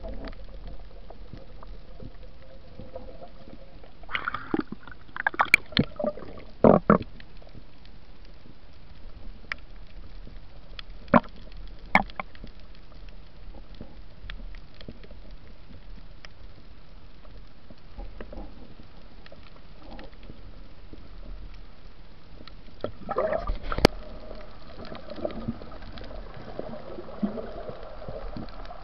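Underwater sound through a camera's waterproof housing during a night spearfishing dive: a steady muffled water rush with scattered sharp clicks and knocks, coming in clusters a few seconds in and again a few seconds before the end.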